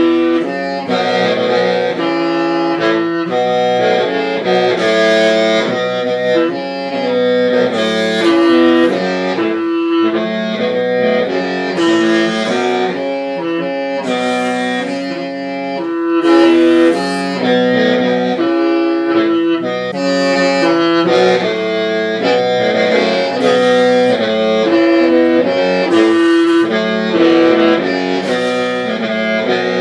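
Hmong qeej (lusheng), a bamboo free-reed mouth organ, playing a melody without pause. Several pipes sound at once, with a low note held underneath while the upper notes change about once a second.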